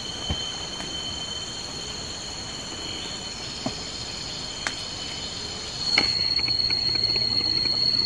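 Insects droning steadily at a high pitch, the drone growing louder about six seconds in, with a few faint clicks in between.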